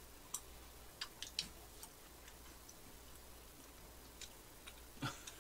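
Faint, irregular wet mouth clicks and smacks from someone chewing a soft macaron with shine muscat grapes, a few close together in the first two seconds and a slightly fuller one near the end.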